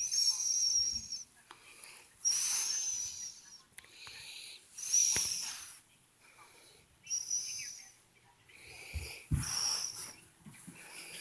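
Wheezy breathing close to the microphone: a whistling breath about every two and a half seconds, five times. A brief low thump sounds near the end.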